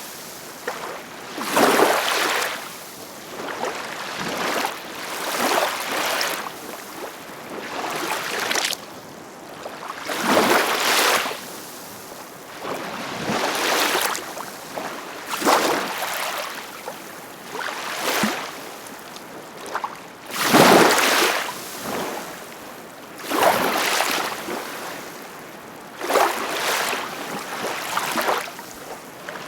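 Ocean waves breaking and washing in, in repeated surges of rushing water about every two to three seconds.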